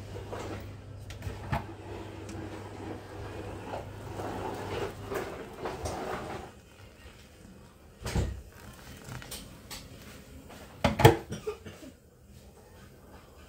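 Hot water poured from a kettle into a glass bowl of oats, a running splash that stops about six seconds in. Then come two sharp knocks of things being set down or handled, the louder one near the end.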